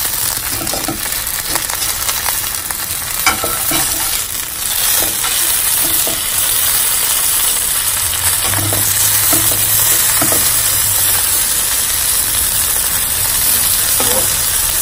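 Bánh xèo, a rice flour crepe, sizzling steadily as it fries in oil in a hot pan: the sizzle the dish is named for. A few light knocks sound over it.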